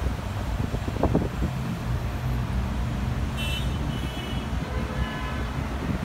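Steady low outdoor rumble of wind and distant traffic. About halfway through come a few short, high-pitched bird calls, the later ones lower.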